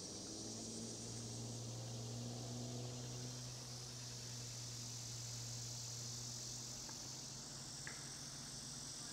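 Steady high-pitched chorus of insects, with a low hum underneath that is strongest in the first few seconds and then fades.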